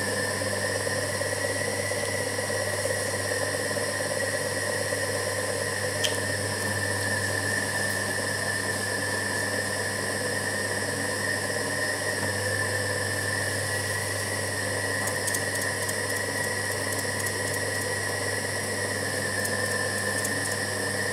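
Electric pottery wheel motor running steadily, a low hum under a high whine, as the wheel spins at speed for centering clay. A brief tick comes about six seconds in.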